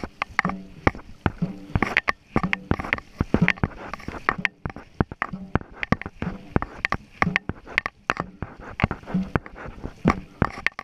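A dragon boat crew paddling in time: paddle blades catching and splashing through the water again and again, with many sharp knocks and clacks among the strokes.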